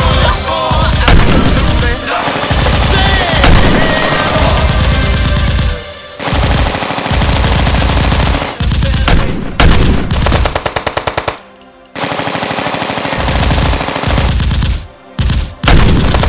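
Rapid automatic machine-gun fire, long continuous bursts of evenly spaced shots broken by a few short pauses, dubbed over the Nerf battle as a sound effect, with music underneath.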